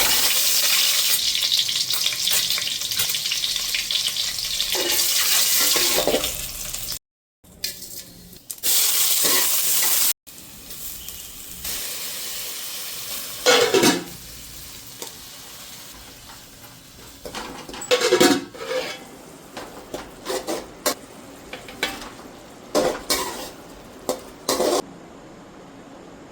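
Food frying in hot oil in a pan for a masala egg dish. It sizzles loudly for several seconds, stops abruptly, then sizzles again briefly. After that it sizzles more quietly while a spatula scrapes and stirs the pan a number of times.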